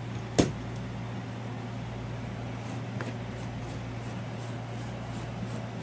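A sharp click of metal tools about half a second in, then faint, rhythmic scratching strokes of a small wire brush scrubbing a small brass carburetor part held in pliers, over a steady low hum.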